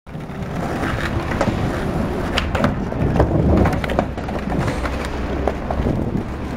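Skateboard wheels rolling over stone paving tiles with a steady low rumble, broken by irregular sharp clicks and clacks as the wheels cross tile joints and the boards knock.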